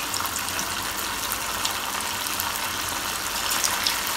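Masala-coated potato fries sizzling in hot oil in a frying pan: a steady hiss with fine crackles.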